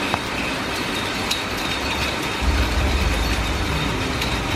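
Heavy rain falling steadily, with a few sharp ticks of drops striking. A low rumble joins about halfway through.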